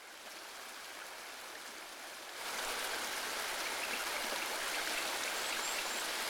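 Water pouring over a small stone weir into a rocky stream: a steady rushing that gets louder about two seconds in.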